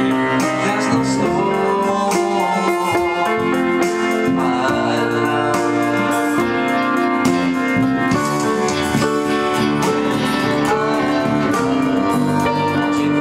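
A small live band playing a song: bass guitar, acoustic guitar and a Yamaha electronic keyboard, with a man singing into a microphone.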